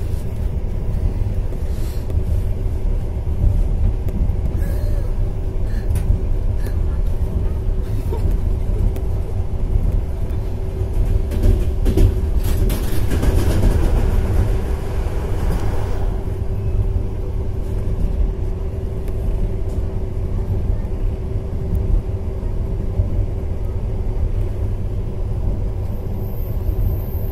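Passenger train carriage running along the rails at speed, heard from inside: a heavy rumble with a steady hum. From about 11 to 16 seconds in, another train passes close alongside, adding a louder rush of noise.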